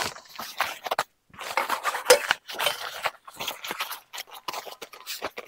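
A grill cover rustling as it is pulled off an offset smoker: a string of short, scratchy swishes with a brief pause a little after a second in.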